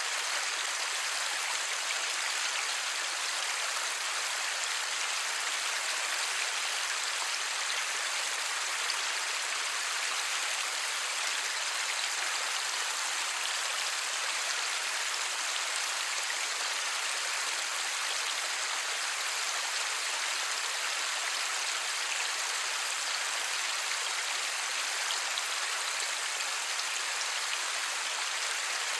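Steady light rain falling, a dense, even patter with no thunder and no single drops standing out.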